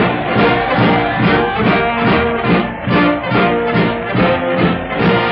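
Lively brass-led band music, trombone and trumpet to the fore, in a swing style with a steady beat of about two pulses a second.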